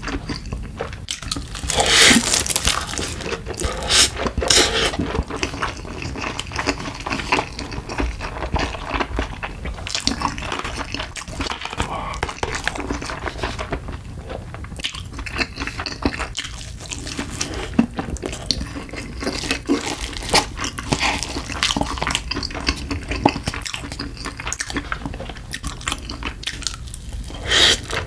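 Close-miked eating sounds: spicy cup noodles and seaweed slurped and chewed wetly, a fried piece bitten and chewed, and a loud noodle slurp near the end.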